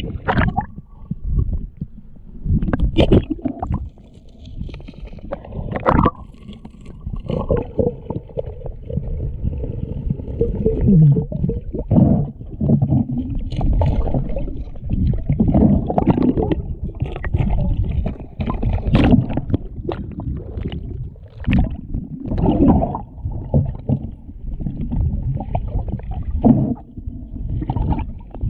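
Muffled underwater noise heard through a camera's waterproof housing: water rushing and sloshing past with low rumbling, and irregular knocks and bumps against the case. A steady hum runs for a few seconds near the middle.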